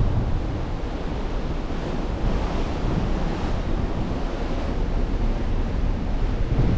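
Wind buffeting the microphone over a steady rush of sea water churning along the hull of a ship under way; an even noise with a deep, fluttering rumble.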